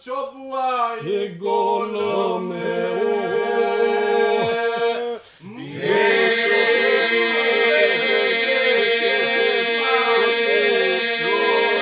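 Male group singing Lab iso-polyphony unaccompanied: lead voices weave ornamented lines over a held drone sung by the rest. The singing breaks off briefly about five seconds in, then the whole group comes back in, fuller, over the sustained drone.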